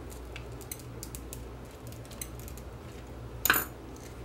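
Small clicks and scrapes of a metal pry tool on a plastic clock housing as its projector lens is worked loose, with one louder plastic snap about three and a half seconds in as the piece gives. A steady low hum runs underneath.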